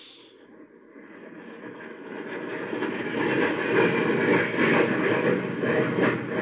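Radio-drama sound effect of a jet plane roaring as it flies over low, swelling from faint to loud over the first three seconds and then holding.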